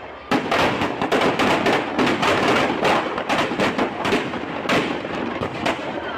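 Firecrackers packed into a burning Ravana effigy going off in a rapid, dense string of bangs and crackles, starting about a third of a second in, with louder single bangs scattered through.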